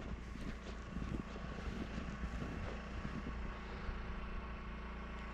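A generator engine running steadily with a low hum. Irregular crunching strokes sound over it for the first three seconds or so, then die away.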